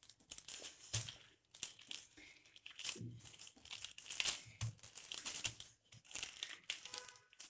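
Plastic sheeting crinkling and rustling as a wooden rolling pin is pushed back and forth over it, pressing a warm sesame-and-jaggery mixture flat. The strokes come in irregular rustling spells, with a few soft low thumps.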